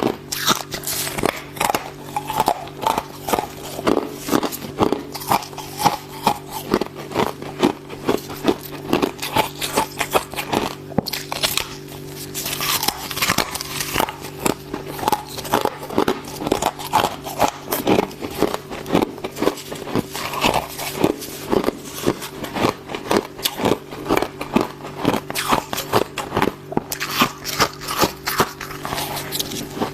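A person biting and chewing fluffy freezer frost and ice chips: rapid, continuous crunching, several crunches a second, over a steady low hum.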